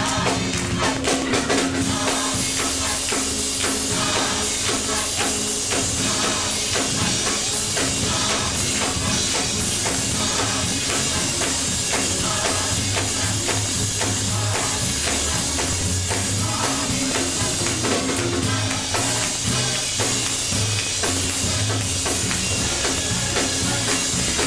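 Upbeat gospel praise music: drums and percussion keeping a quick steady beat, with the choir and congregation clapping along.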